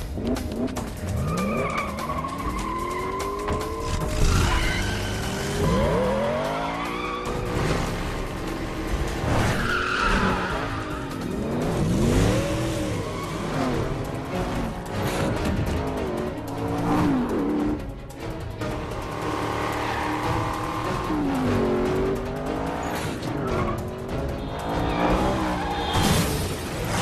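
Car engines revving up and down again and again with tyres squealing and skidding, over dramatic score music.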